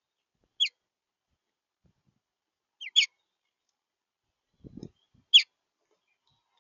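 A small songbird at the feeder giving three short, sharp chip calls, each a quick downward sweep, spaced a little over two seconds apart. A soft low thump comes just before the third call.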